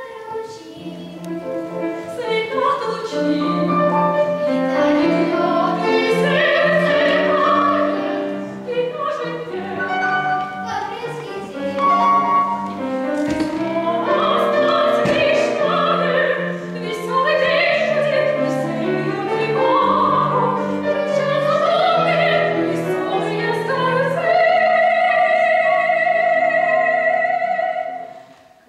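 A woman singing classical song in operatic style, accompanied on a grand piano; near the end she holds one long high note, then stops.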